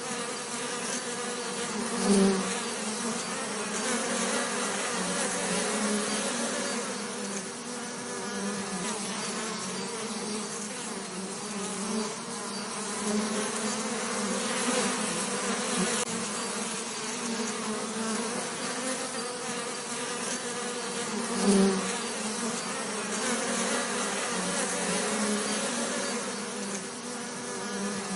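Bees buzzing in a steady, pitched drone. The buzz swells briefly louder twice, about two seconds in and again past the twenty-second mark.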